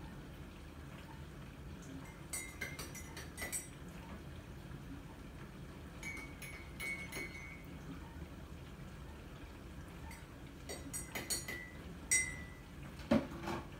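Three clusters of light clinks of hard objects, several of them ringing briefly at the same high note, then a duller knock near the end.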